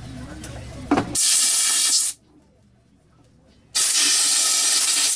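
Two blasts of compressed air hissing, each about a second long and starting and stopping abruptly, with a sharp click just before the first.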